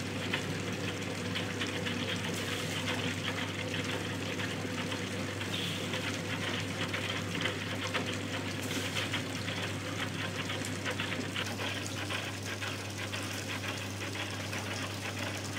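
Stainless-steel dough mixer running with a steady low hum as its arm churns rice-flour dough, while water is poured from a bucket into the bowl and splashes in.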